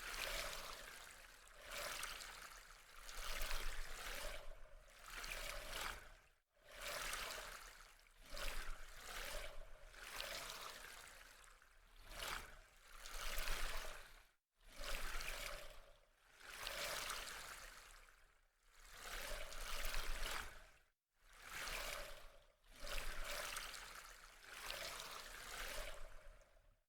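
Running water splashing and trickling, swelling and ebbing in uneven surges every second or two, broken by a few sudden brief gaps of silence.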